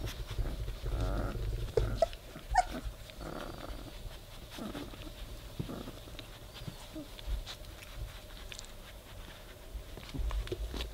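Young Labrador puppies whimpering in short squeaks, some sliding up in pitch, as they root and paw at a plush teddy bear as if trying to nurse, with soft rustling and bumps of the puppies against the plush.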